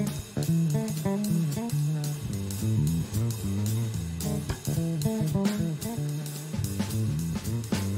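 Background music: a guitar-led instrumental with plucked notes over a bass line and a steady beat.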